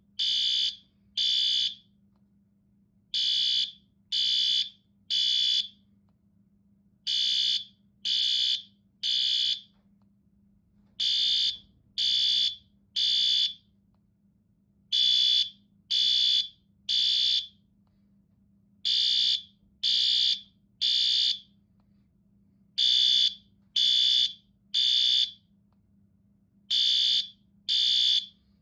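Fire alarm sounding in the temporal-three pattern: three high-pitched half-second beeps about a second apart, then a pause, repeating every four seconds. This is the standard evacuation signal.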